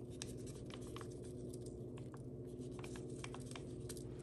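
Miniature schnauzers eating from their food bowls: quiet, irregular clicks and crunches of chewing and of bowls being nosed, over a steady low hum.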